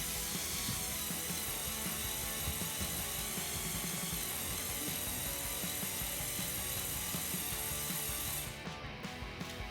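Lego Technic tow truck driving, its electric motor and plastic gears making a steady grinding rattle that eases off near the end.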